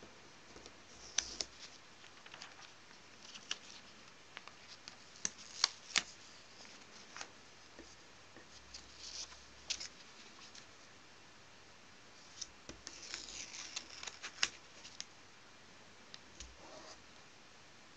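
Faint handling of thin drawing paper: irregular short rustles and light clicks and taps, with a busier patch of rustling about three-quarters of the way through.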